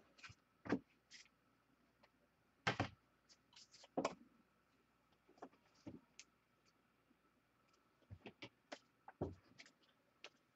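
Faint, scattered clicks and taps of trading cards being handled and sorted into order, about a dozen short knocks spread unevenly.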